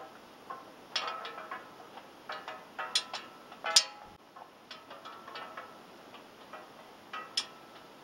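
CF6 turbofan fan windmilling in the wind, its freely turning blades making irregular metallic ticks and clinks, several a second, some ringing briefly.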